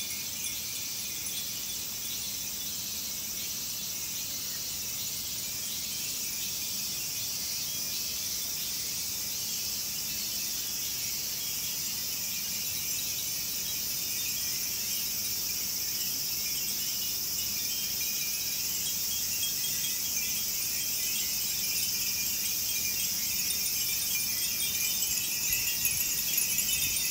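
Many Edo furin, hand-blown glass wind bells, tinkling irregularly in the breeze, more often near the end. Underneath runs a steady high insect drone.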